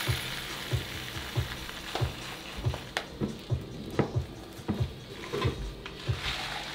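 Uncooked rice pouring from a plastic bag into a glass measuring cup: a grainy hiss, strongest in the first couple of seconds, with a few sharp clicks and crinkles from the bag later on.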